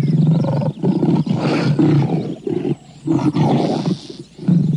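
A tiger roaring in a string of rough, low calls with short breaks between them.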